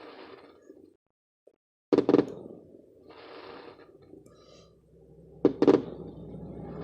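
Aerial firework shells bursting at a distance: a double bang about two seconds in and another about five and a half seconds in, each trailing off into a fading rumble.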